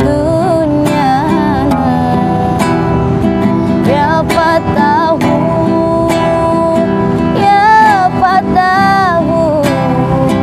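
A woman singing an Islamic sholawat, her voice sliding and bending between notes, accompanied by a strummed acoustic guitar.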